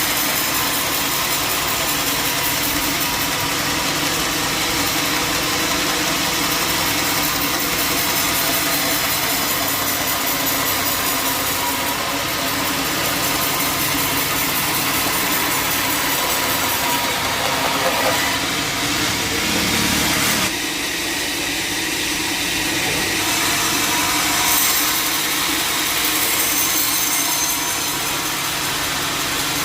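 Band sawmill running steadily as its blade cuts through a jackfruit log: a constant machine hum under a hissing cutting noise, which shifts briefly about two-thirds of the way through.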